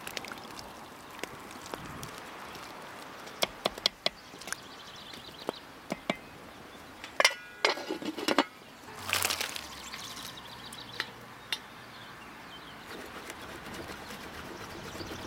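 A wooden spoon stirring bulgur pilaf in an aluminium pot as it simmers, with scattered light knocks against the pot. A little after halfway there are sharp metallic clinks and a longer clatter as an aluminium lid is set on the pot.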